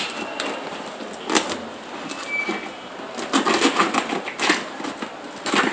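A thin pointed tool cutting and picking through plastic packing tape on a small parcel: irregular clicks, scrapes and crinkles of the tape, most frequent about three to four seconds in.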